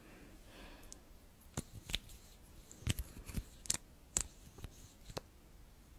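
Liquid lipstick tube and its plastic applicator wand being handled close to the microphone: a series of about nine sharp, irregular clicks and taps as the wand works against the tube.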